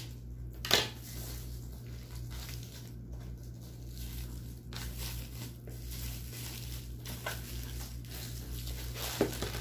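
Clear plastic wrapping crinkling and tearing as it is cut and peeled off a plastic food container, with a sharp crackle about a second in. A steady low hum runs underneath.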